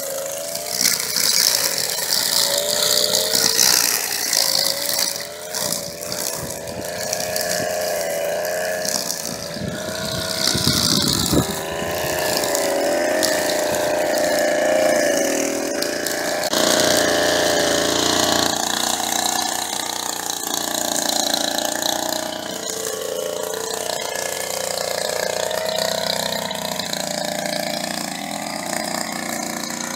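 String trimmer running while it cuts grass, its motor pitch rising and falling steadily as the load changes.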